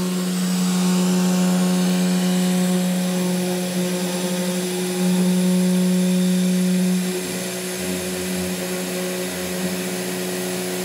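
A 3018 desktop CNC router's spindle and end mill cutting aluminium: a steady pitched cutting tone with overtones over a hiss. About seven seconds in, the tone weakens and an uneven lower hum comes in.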